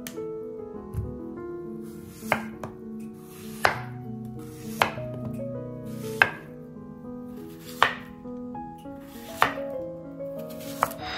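Chef's knife slicing a peeled zucchini into thick rounds on a bamboo cutting board. Each cut ends in a sharp knock on the board, seven in all from about two seconds in, one roughly every second and a half, over background music.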